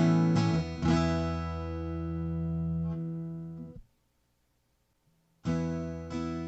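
Acoustic guitar strummed through a Cuvave Cube Baby pedal: a few chord strums, then one chord left to ring and fade. It cuts off abruptly a little before four seconds in, about a second and a half of silence follows, then the strumming starts again.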